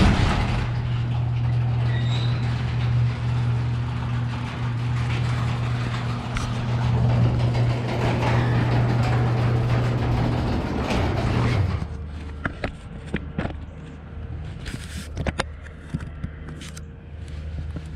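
A steady motor hum with rattle runs for about twelve seconds, then cuts off; after it come scattered clicks and knocks.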